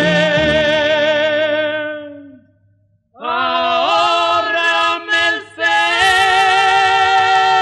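A ranchera song with mariachi backing ends on a long held sung note with vibrato, which fades out about two and a half seconds in. After a brief silence the next song starts, with the band playing long held notes.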